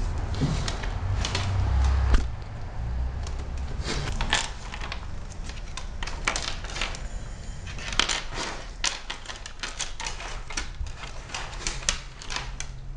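Basset hound chewing something crunchy on a wooden floor: a run of irregular sharp crunches and clicks, thickest in the second half, with a low rumble in the first couple of seconds.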